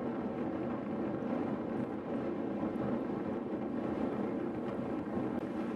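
Steady, even rush of wind on the microphone of a camera riding along on a moving road bicycle.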